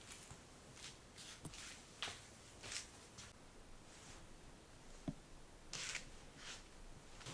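Faint rustling of clothing and soft steps in slide sandals on a wooden floor: a few scattered swishes, with one small tap about five seconds in.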